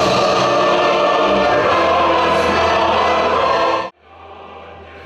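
Choir singing a solemn piece with accompaniment, cut off abruptly about four seconds in, leaving a much quieter low hum.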